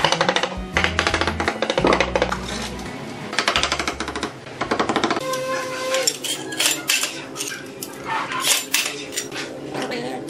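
Background music with a steady bass line, over light metallic clicking and clinking as a small metal-headed tool is tapped and rubbed across glazed ceramic wall tiles. One brief ringing clink comes about five seconds in.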